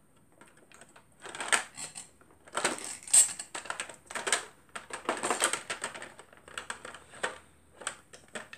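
Plastic makeup bottles, tubes and compacts clicking and clattering against each other in a clear plastic box as hands rummage through them, in irregular runs of rattles.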